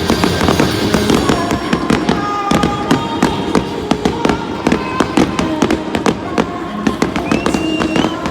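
Fireworks crackling, with many rapid sharp pops, over music.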